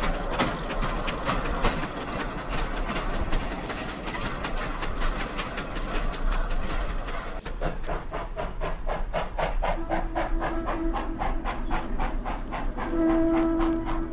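Dapol B4 tank locomotive model's digital sound effects: an even, rhythmic steam chuff that quickens after about seven seconds, with two whistle blasts in the second half, the second one louder.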